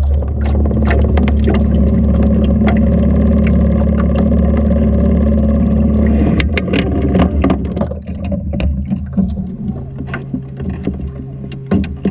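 Jon boat's motor running steadily under way, with water splashing and dripping against the waterline camera. About two-thirds of the way through, the motor drops back and quiets.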